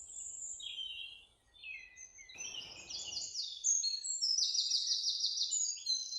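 Small songbirds chirping and trilling, with a run of fast repeated notes from about four seconds in. About two and a half seconds in there is a brief burst of lower, rustling noise.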